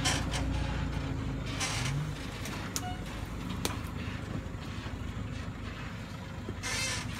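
Forland dump truck's diesel engine running steadily as the truck crawls forward carrying a full load of logs, a continuous low rumble.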